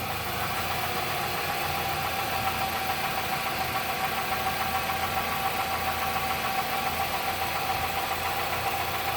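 2015 Nissan NV200 running with the brake released so the front drivetrain turns: a steady mechanical running sound with a steady whine through it. This is the front-end noise being chased, which might be the CV axles.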